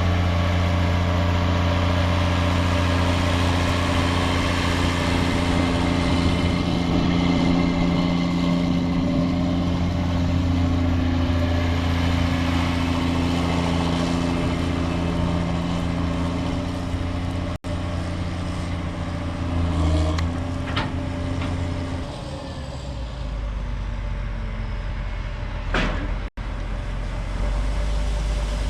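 Heavy harvest machinery running steadily, a large engine's drone with machine noise over it. The sound cuts out briefly twice, and after about twenty-two seconds the drone settles lower.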